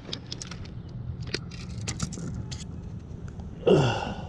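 Steady low rumble of road traffic with scattered small clicks and scrapes, and a short vocal exclamation falling in pitch near the end.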